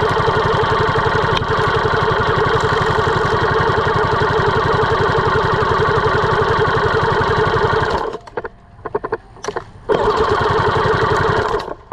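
Classic Army M134-A2 airsoft minigun firing: its electric motor spins the barrel cluster with a fast, steady buzz of rapid-fire shots. One long burst of about eight seconds, a pause of about two seconds, then a shorter burst of about two seconds that cuts off near the end.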